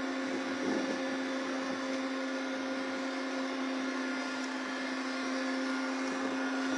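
Crane machinery running with a steady droning hum and a constant low whine while it hoists a heavy suspended load.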